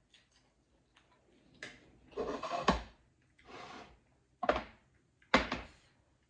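Close-miked noodle eating: several short bursts of slurping and chewing mixed with knocks and scrapes of a fork against the plate, some bursts starting with a sharp knock.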